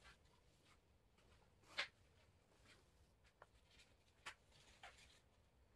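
Near silence with a few faint, short taps and rustles of hands handling painting supplies, the sharpest tap a little under two seconds in and another a little past four seconds.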